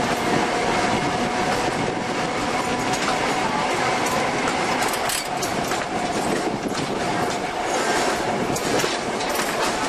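Electric tram running along the track, with a steady whine and wheels clicking over the rail joints.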